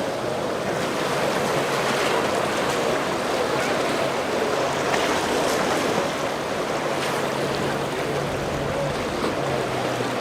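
Rushing, breaking water with a boat engine running underneath as a low steady hum, which grows a little stronger near the end.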